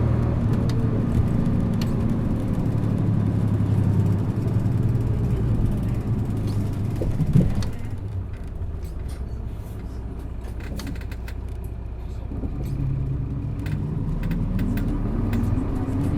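Diesel engine of an Isuzu Erga PJ-LV234N1 city bus heard from on board, running under load. After a brief knock about seven seconds in it eases off and goes quieter for a few seconds, then picks up again with its pitch rising near the end as the bus accelerates.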